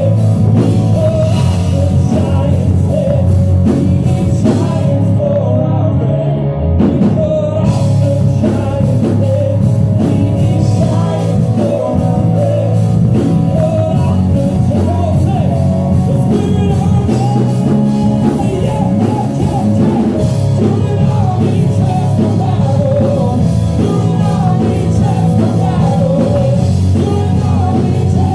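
Loud rock music with singing and a drum kit, playing steadily throughout.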